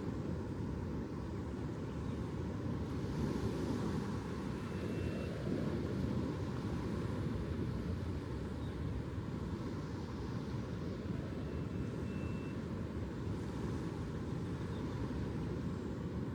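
Ocean surf rumbling steadily, with waves washing in every few seconds.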